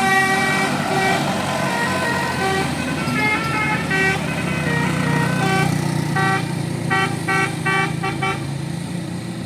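A bus's Basuri telolet horn playing a melody of short pitched toots, with a quicker run of short notes near the end, over the bus's engine running.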